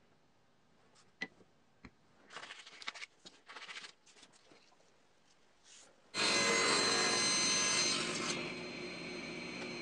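Paper rustling and rubbing as printed part templates are handled, with a few light clicks. About six seconds in, a table saw comes in suddenly and runs steadily, a little quieter near the end, as a small piece of wood is fed through the blade with push sticks.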